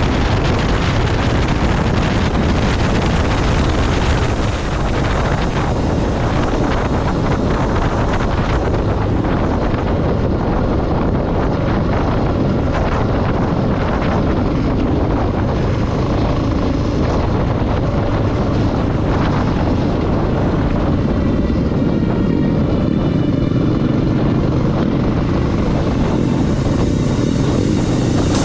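Motorcycle on the move: a steady, loud rush of wind over the microphone with the engine running underneath.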